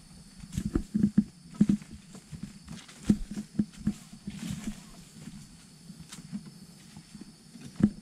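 Footsteps walking down a dry, leaf-covered forest trail: irregular dull thuds, a few a second, some louder than others.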